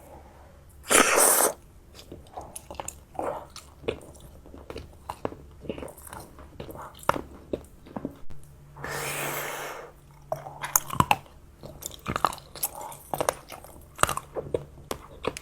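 Close-up chewing and biting of chocolate and shuiyi sugar candy: a run of short wet clicks and crunches. Two longer noisy rustling bursts stand out, one about a second in and one near the middle.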